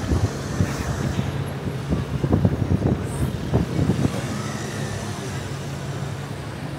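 Street traffic: a motor vehicle's engine running steadily under a low hum, with people talking and a run of irregular knocks in the first four seconds.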